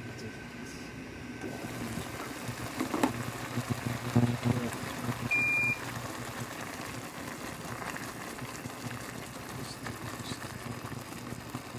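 IH induction cooktop running under a pot of ramen with a steady hum, with a few light knocks about three to four seconds in and one short high beep a little after five seconds.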